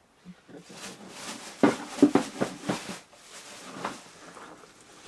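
Rustling and a few sharp knocks of things being handled, loudest about two seconds in.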